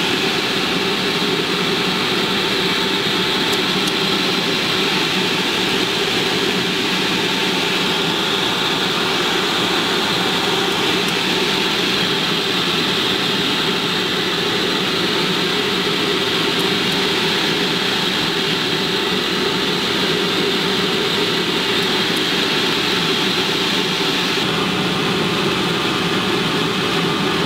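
Steady, loud drone of running machinery in a submarine's auxiliary machinery room, an even blend of hum and hiss that never lets up; the hiss thins slightly near the end.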